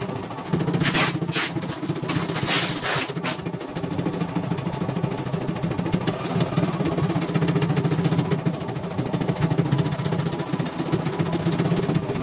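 CNY E900 computerized embroidery machine stitching, its needle working in a steady rapid rhythm as the hoop carriage moves the fabric on a test stitch-out. A few short louder noises come in the first three seconds.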